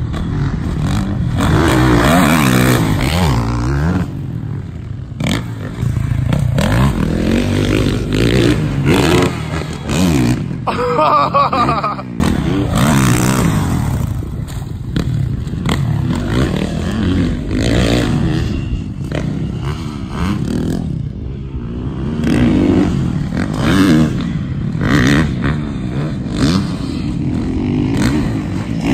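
Motocross dirt bike engines revving hard around a dirt track. The pitch climbs and drops again and again as the throttle is opened and chopped over the jumps, with a clear rising rev about a third of the way in.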